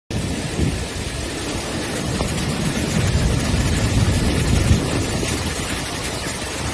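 Floodwater rushing, a steady loud roar with a low, unsteady rumble underneath.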